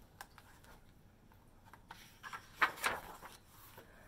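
Pages of a paperback picture book being handled and turned: a light tap, then paper rustling and scraping about two seconds in.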